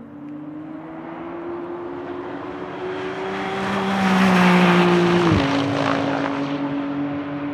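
McLaren Artura race car's 3.0-litre twin-turbo V6 going past at speed. The engine note rises and grows loud as it draws level, then drops sharply in pitch and fades as it pulls away.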